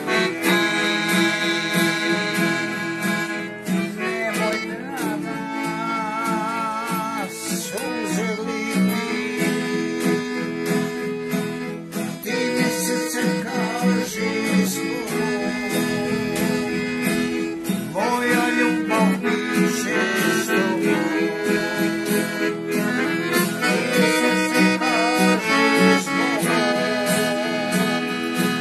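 A piano accordion and an acoustic guitar playing a tune together, with held accordion chords over strummed guitar.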